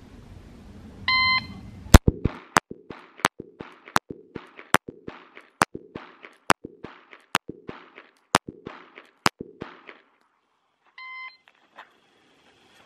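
A shot timer beeps once, then a Glock 19 9mm pistol fires ten shots at a steady pace, a little under one a second. The timer beeps again near the end.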